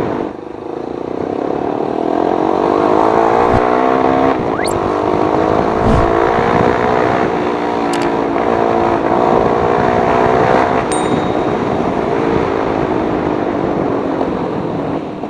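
Motorcycle with an aftermarket Akrapovic muffler and big-elbow header running loud. Its exhaust note climbs over the first few seconds, holds, then eases off near the end, with a few sharp clicks along the way.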